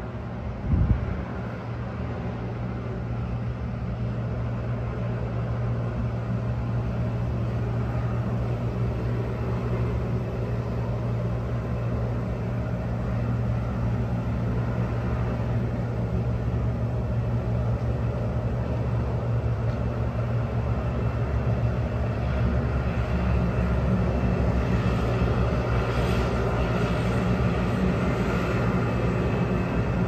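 Combine harvester with a corn head running steadily as it harvests dry corn, its engine drone slowly growing louder as it approaches. A single thump about a second in.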